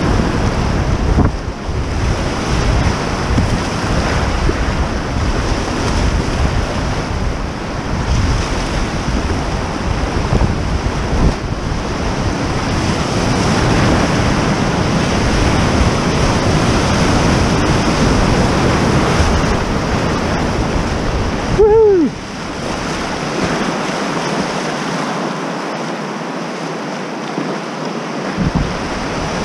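Whitewater rapids rushing and splashing around a kayak, loud and steady, with wind on the microphone. About three quarters of the way through comes one short falling squeak, and the deep rumble drops away for several seconds.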